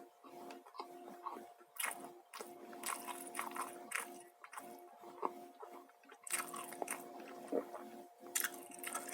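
A person eating crunchy fried food close to the microphone: repeated bites and chewing with sharp crunches, heaviest in the second half. A faint steady hum runs underneath.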